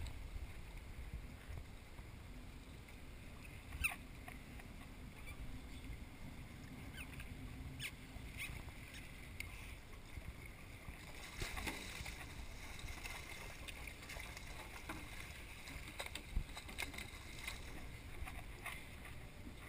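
Sea water washing against the side of a fishing boat with a steady low rumble, and a few sharp knocks about four, eight and sixteen seconds in.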